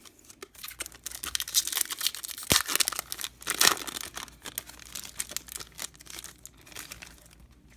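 Wrapper of a baseball card pack being torn open and crinkled: a busy run of crackles and rustles.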